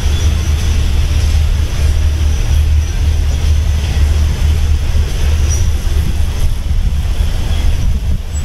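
Steady low rumble of a train in motion, with wind buffeting the microphone.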